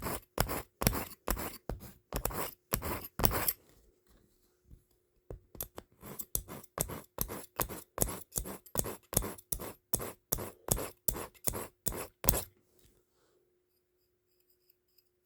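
Steel knife blade being drawn repeatedly across a handheld knife sharpener, a rapid series of scraping strokes about two or three a second. The strokes pause briefly about four seconds in, resume, and stop a couple of seconds before the end.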